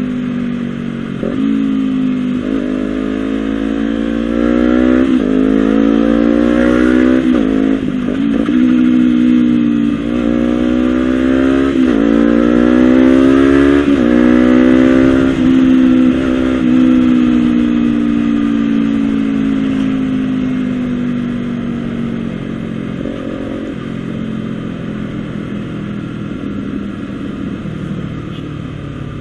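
Honda CBR250RR parallel-twin engine through a Villan SV1 slip-on exhaust, pulling hard: the pitch climbs and drops suddenly several times as it shifts up through the gears, then falls slowly as the throttle eases off.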